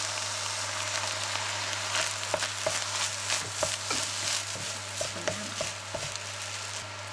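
Fried rice sizzling in a hot frying pan as soy sauce is poured in, then a wooden spatula stirring and scraping through the rice in a series of quick strokes from about two seconds in to near the end.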